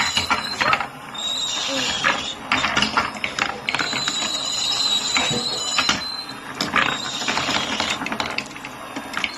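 Marbles rolling and clattering down a handmade wooden marble run: a dense run of clicks and knocks, with a steady high ringing tone in several stretches.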